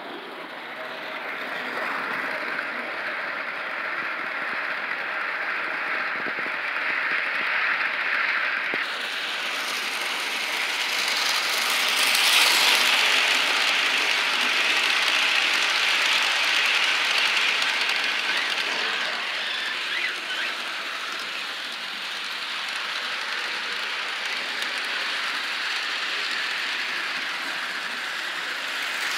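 Model train running on plastic roadbed track: the small electric motor of the steam locomotive whirring, with the wheels of the passenger cars rattling over the rails. It grows louder as the train passes close by, about twelve seconds in.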